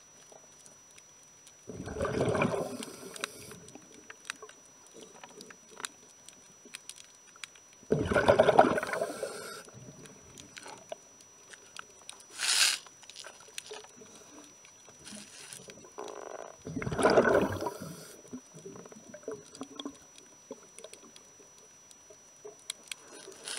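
A diver breathing through a regulator, heard underwater: three bursts of exhaled bubbles several seconds apart, and a short hiss of an inhalation about twelve seconds in. Faint clicks and scrapes come in between.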